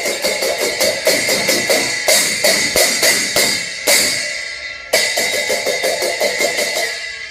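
A pair of small hand cymbals clashed together rapidly and steadily, about five clashes a second, each one ringing on. A few harder clashes stand out about two, four and five seconds in, and the clashing grows softer near the end.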